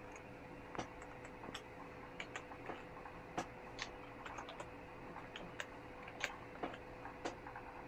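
Irregular clicking of a computer mouse and keyboard, about a dozen short sharp clicks spaced unevenly, over a faint steady hum.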